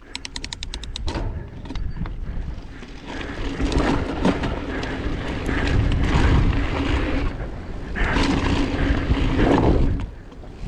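Enduro mountain bike rolling fast down a rough, dry dirt trail: tyre noise on the hardpack, with frequent clicks and rattles from the bike over the bumps and wind on the camera microphone, plus a rapid run of clicks in the first second.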